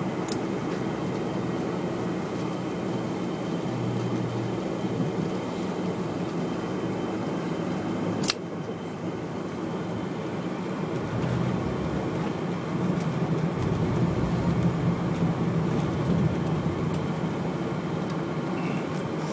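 Cabin noise of a Boeing 747-400 taxiing, heard from a window seat over the wing: the steady hum of its Rolls-Royce RB211 engines and cabin air, growing somewhat louder after about eleven seconds. A single sharp click about eight seconds in.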